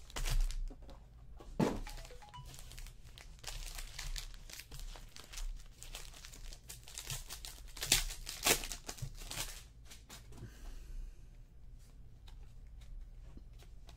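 Trading cards and crinkly plastic packaging rustling as cards are opened, sorted and handled by hand: irregular scrapes and clicks, busiest about eight to nine seconds in, thinning out after that.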